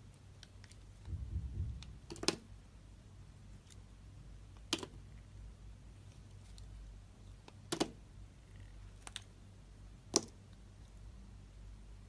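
Knife cutting into a bar of soap: a few sharp, crisp clicks spaced two to three seconds apart as the blade snaps through, with a low rumble of handling about a second in.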